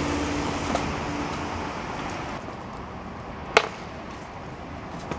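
Steady city background noise with a low hum that stops after about a second and a half, and one sharp knock about three and a half seconds in.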